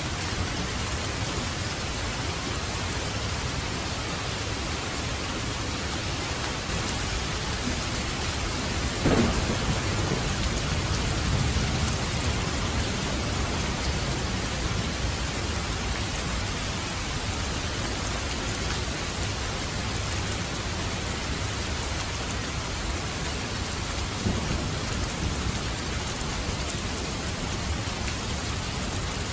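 Steady rain. About nine seconds in, a rumble of thunder rises and dies away over a few seconds, and a smaller rumble comes near the end.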